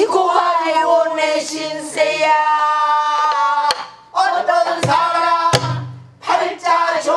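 A woman sings pansori in long, wavering held notes, accompanying herself on a buk barrel drum struck with a stick and her open hand in jungmori rhythm. A few sharp drum strokes fall in the second half, where the voice breaks briefly about four and six seconds in.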